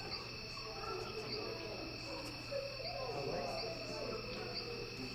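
Exhibit room tone: distant people's voices murmuring indistinctly over a steady electrical hum and two steady high tones, with a short high chirp every second or so.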